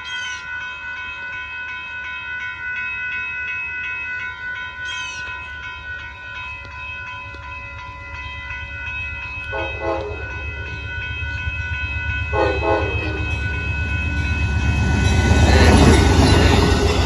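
Amtrak passenger train's locomotive horn sounding steady chords as the train approaches the grade crossing. Near the end the rumble of the locomotive and cars passing the crossing builds and becomes the loudest sound.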